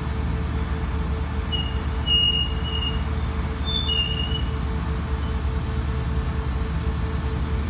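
Putzmeister SIKA PM 500-PC shotcrete machine running with a steady low drone and hum. A few brief high squeaks come between about one and a half and four and a half seconds in.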